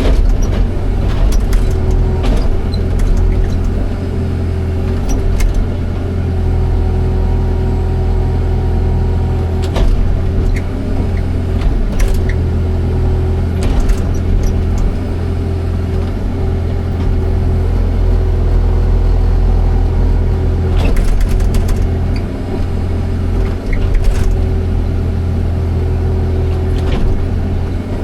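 Excavator's diesel engine running steadily, with scattered short knocks and clanks.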